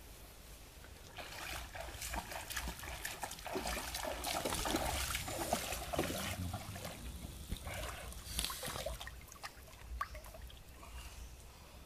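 Water trickling and splashing, with small irregular clicks and knocks. It starts about a second in and dies down after about nine seconds.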